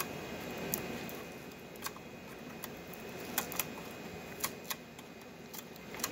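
Tape being peeled by hand off an LCD monitor's thin sheet-metal backlight housing: a few scattered sharp clicks and crackles over a faint steady background.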